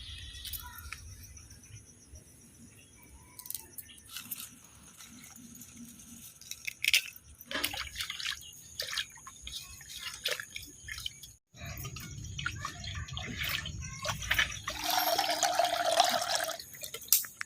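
Water dripping and splashing in kitchen work, with scattered clicks and knocks of handled utensils. A louder rush of water comes about fifteen seconds in and lasts a little over a second.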